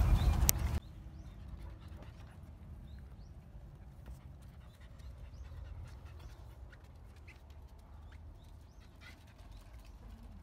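Small dog panting and whimpering faintly, with scattered light ticks like claws on a wooden deck and faint short chirps. It begins with a loud rush of noise that cuts off abruptly about a second in.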